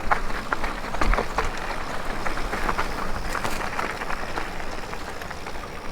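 Mountain bike riding along a dirt trail: a steady rush of rolling noise with many short clicks and rattles.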